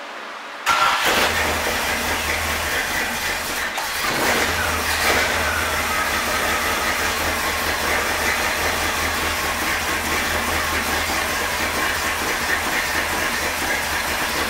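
Freshly installed Chevrolet 350 small-block V8 crate engine coming on suddenly about a second in and then running steadily.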